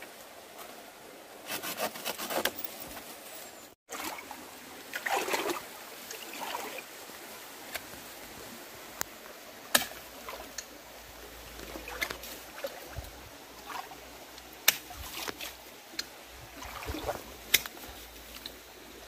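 Irregular knocks, scrapes and rustles of hand tools digging a wild Ficus loa out of rocky ground, over the faint steady wash of a stream.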